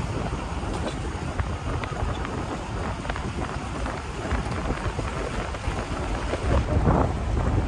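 Wind buffeting the microphone over a steady low rumble at the waterside, gusting louder near the end.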